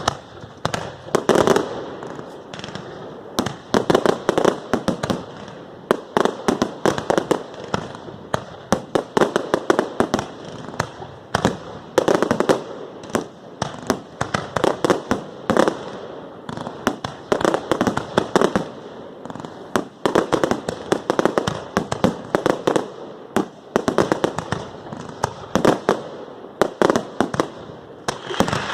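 Fireworks display: rapid volleys of sharp cracks and bangs, bunched in dense clusters every second or two with no let-up.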